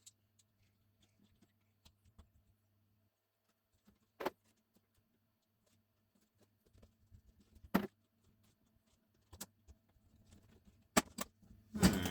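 Scattered sharp clicks and knocks of small parts being handled and fitted while a grinder is reassembled on a workbench. They come singly a few seconds apart, then closer together near the end, over a faint steady hum.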